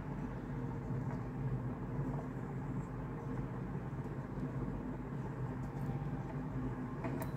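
Steady low mechanical hum with a faint click near the end.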